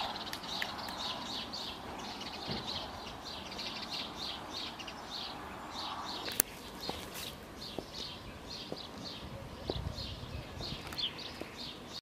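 Small birds chirping: a steady run of short high chirps, several a second, with a single sharp click about six seconds in.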